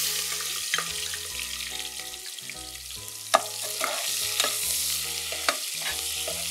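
Sliced onions and whole spices frying in hot oil in a steel pressure cooker, with a steady sizzle. A metal spatula stirs and scrapes the pan, giving a sharp clink every second or so.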